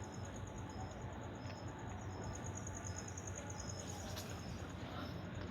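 Insects chirring: a steady, high, rapid trill, with a second, lower insect call pulsing on and off about twice a second.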